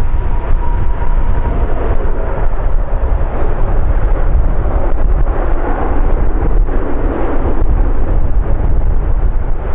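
Jet engine noise of an Air Canada Rouge Airbus A319 rolling out after touchdown, a loud steady rumble with the roar swelling a little midway, mixed with heavy wind buffeting the microphone.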